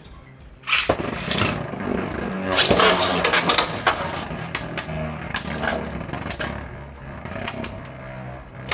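Beyblade tops launched with a sudden rip about a second in, then spinning and clashing in a stadium, with many sharp clicks of collisions that thin out toward the end.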